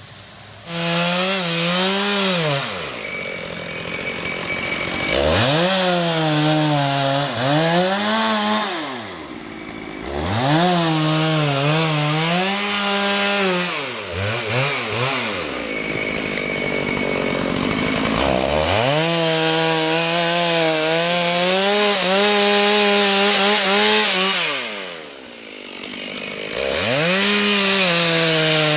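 Two-stroke chainsaw running at full throttle and cutting wood. The engine drops toward idle and revs back up several times as the throttle is let off and opened again.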